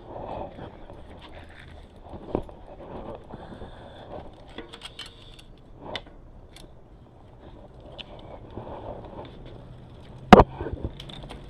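Scattered metallic clicks and knocks of a bicycle wheel's axle being seated in the frame's dropouts, with one loud sharp knock near the end.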